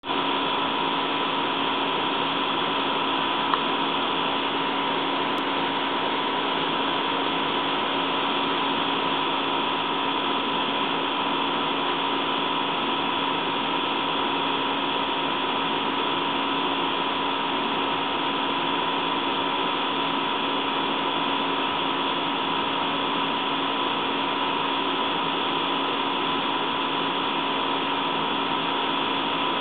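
Steady hiss with several constant hum tones running unchanged, and one faint click about three and a half seconds in.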